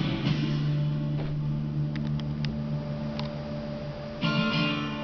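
Recorded rock music: a long held low note, then a brighter, louder chord coming in about four seconds in.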